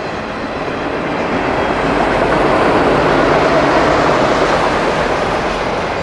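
Freight train of autorack cars rolling past, a steady rush and rumble of steel wheels on rail that swells to its loudest midway and eases off toward the end.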